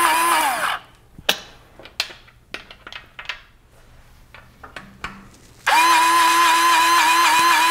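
An 18-volt Lube-Shuttle electric grease gun's motor runs with a steady whine and winds down with a falling pitch about half a second in. Then come a few sharp clicks as the grease coupler is moved onto the next zerk fitting. About six seconds in, the motor starts up again.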